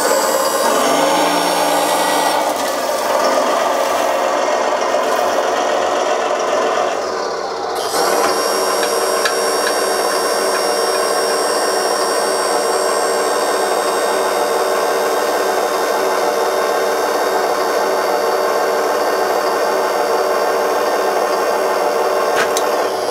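Small electric hydraulic pump of a scale RC dump truck running with a steady rasping whir while the tipper body lowers. The sound dips briefly about seven seconds in, then starts up again.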